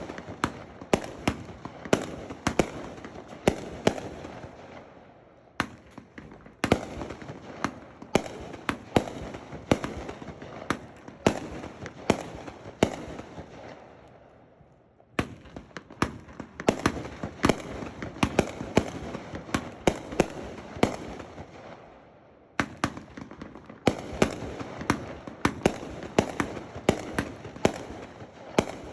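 Tako Brocade Blues consumer firework cake firing a rapid string of shots, about two sharp reports a second over a continuous noisy wash. The barrage breaks off in brief lulls about five, fourteen and twenty-two seconds in, then picks up again.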